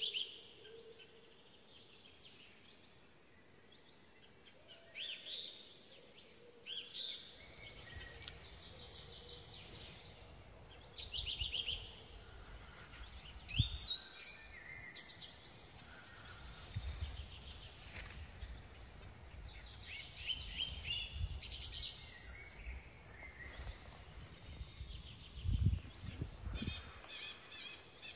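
Wild birds chirping and trilling in short calls again and again. From about seven seconds in, a low rumble runs beneath them, with a couple of dull thumps.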